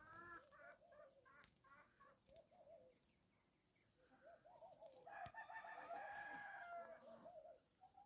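Chickens clucking, faint: many short, repeated calls, thinning out partway through, then several birds calling at once for a few seconds near the end.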